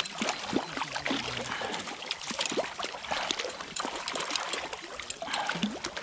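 Water splashing irregularly, a hooked rainbow trout thrashing at the surface as it is brought in and landed.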